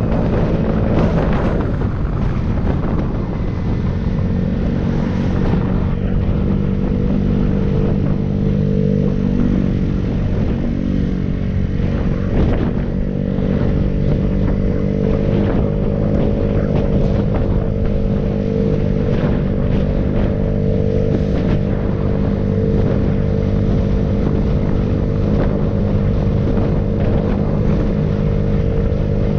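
Vehicle engine running at a fairly steady pitch with road and wind noise while driving at cruising speed, with occasional short knocks from the road.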